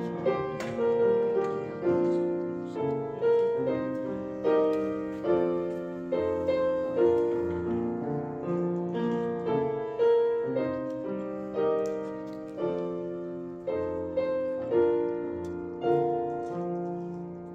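Slow, gentle solo piano music, with notes or chords struck about once a second and each left to fade.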